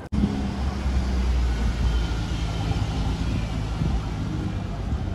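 Mercedes C-Class sedan's engine running at low revs as the car rolls slowly past, giving a steady low exhaust note.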